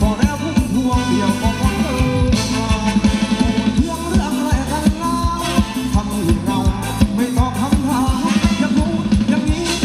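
Amplified live band playing upbeat Thai ramwong dance music, with a steady beat, a bass line and singing.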